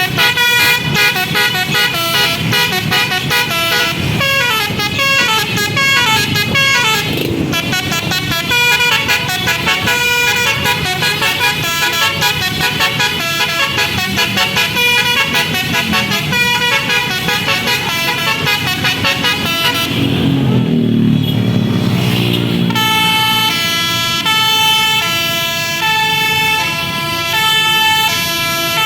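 Basuri telolet bus horn playing rapid multi-tone melodies, its notes switching quickly in tune-like runs. About twenty seconds in, a low engine rumble briefly covers it; then the horn settles into an evenly repeating pattern of alternating notes.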